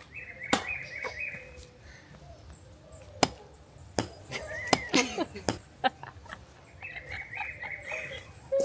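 A blade chopping into a dry branch: separate sharp strikes at an irregular pace, several in quick succession in the middle.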